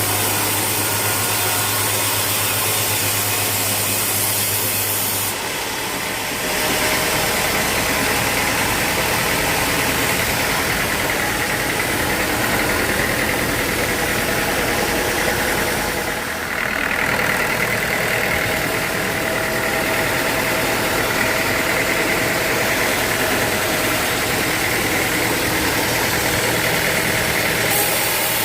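Sawmill machinery running steadily. About five seconds in, a low hum gives way to a noisier sound with a high, steady whine, which dips briefly about halfway through.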